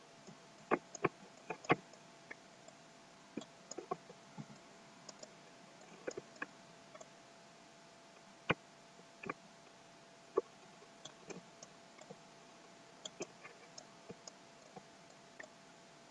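Irregular computer mouse clicks, some single and some in quick pairs or clusters, over a faint steady hum.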